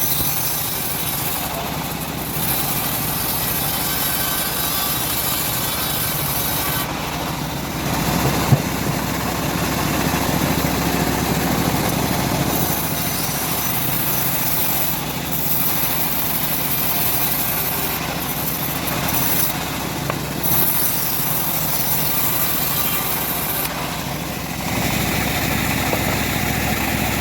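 Engine-driven homemade bandsaw mill running steadily while sawing teak, with a high hiss that comes and goes as the blade works through the wood. One sharp knock about eight and a half seconds in.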